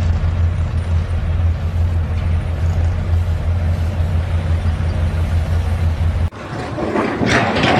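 A motor vehicle or machine engine running steadily with a low drone. It cuts off suddenly about six seconds in, and a different, noisier sound follows.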